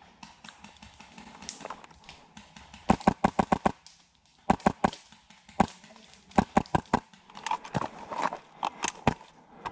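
Airsoft electric rifle firing several short bursts of rapid shots, about ten a second, with single shots in between.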